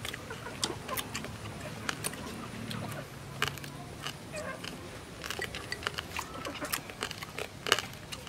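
People chewing and smacking their lips on roasted field-mouse meat, with many scattered sharp clicks from wet mouth sounds and tearing of the meat.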